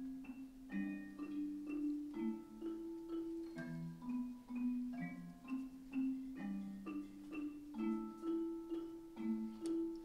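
Xylophones and other mallet instruments playing a slow melody over low notes, struck about two to three times a second.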